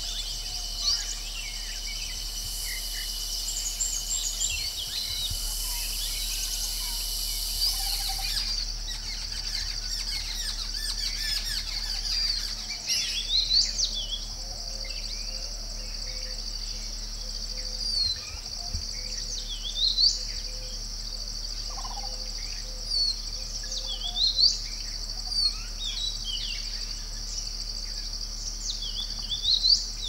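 Wild birds calling from the trees: scattered short chirps and whistled notes, more frequent in the second half, over a steady high-pitched background drone.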